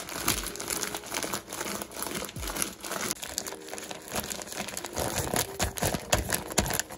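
Plastic zip-top storage bag crinkling and crackling continuously as hands knead chopped komatsuna greens and seasoning inside it, working the seasoning in so the greens give up their water.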